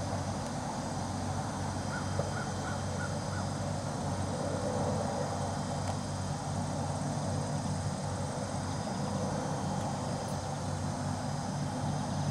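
Small engine running steadily in the background, with a quick run of four short bird calls about two seconds in.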